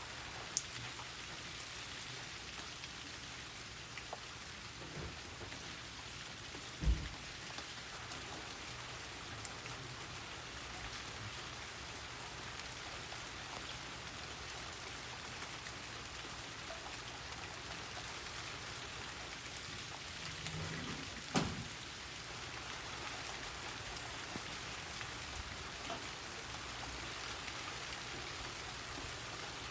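Steady rain falling, an even hiss with scattered louder drops ticking close by. Two dull thuds stand out, about seven seconds in and again about twenty-one seconds in.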